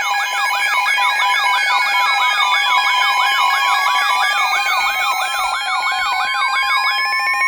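Emergency Alert System alert tone: steady electronic attention-signal tones with a fast siren-like warble, about three cycles a second, and a slow tone that falls and then rises layered over them. The tones cut off right at the end.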